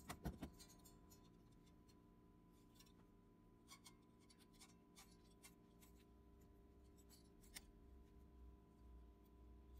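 Near silence: a few small clicks near the start, then faint scattered ticks and light rubbing over a faint steady hum.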